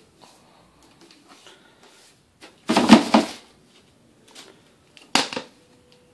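Kenmore dryer lint screen being handled and opened over a plastic-lined bin: a rustling clatter lasting about a second near the middle, then a sharp clack about five seconds in.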